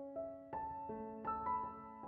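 Quiet background piano music: a slow melody of single struck notes, about two or three a second, each ringing on.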